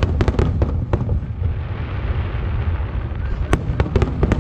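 Fireworks display: aerial shells bursting over a continuous low rumble of booms, with a cluster of sharp cracks in the first second and another near the end.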